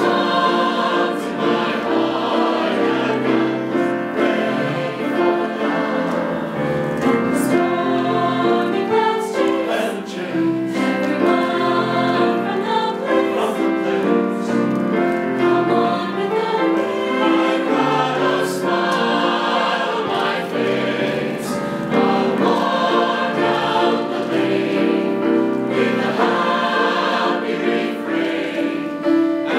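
Mixed choir of men's and women's voices singing in harmony, the chords shifting continuously.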